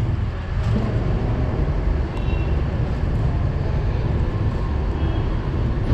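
Steady low rumble of background noise with no clear strikes or clinks, and a couple of faint high tones.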